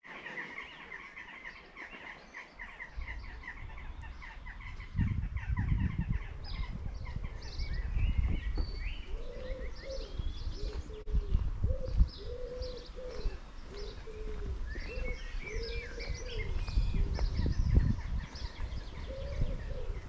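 Birds singing outdoors: quick chirping trills in the first few seconds, higher song notes through the middle, and from about nine seconds a pigeon cooing in a repeated phrase for several seconds. A low rumble runs beneath them.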